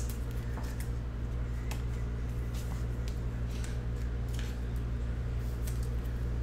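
Trading cards being handled: short, crisp flicks and swishes as cards are slid and flipped off a stack, scattered irregularly. Underneath is a steady low hum.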